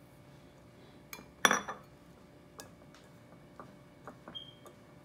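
A small glass bowl is set down on a stone countertop with one sharp, ringing clink about a second and a half in, just after a lighter click. Faint scattered clicks and taps follow as hands rub oil into wheat flour in a glass mixing bowl.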